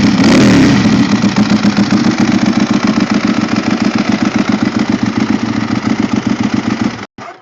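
Ducati 1198S L-twin engine breathing through a 70 mm Termignoni full exhaust system. Its revs drop from a blip into an idle with an even pulsing beat, and it is switched off about seven seconds in.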